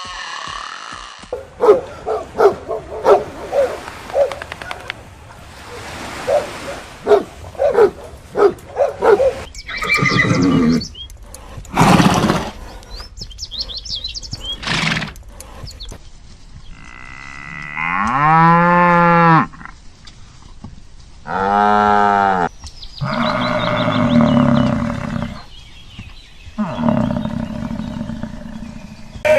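A run of different animal calls: a quick series of short calls over the first several seconds, then two long calls that rise and then fall in pitch, about eighteen and twenty-one seconds in.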